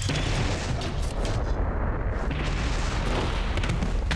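Explosion sound effect: a blast at the start followed by a long, dense rumble, as the giant robot is destroyed.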